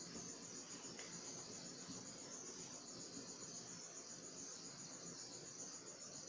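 Faint, steady high-pitched chirring of crickets.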